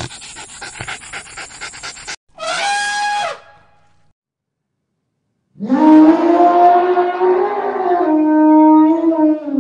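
A dog panting rapidly, then elephant trumpeting: a short high call, and after a gap of about two seconds a long, loud, lower trumpet call that drops in pitch as it ends.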